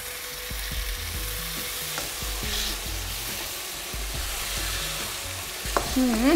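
Tomatoes, chickpeas and spices sizzling in an oiled frying pan as they are stirred, with scattered light clicks of the utensil against the pan.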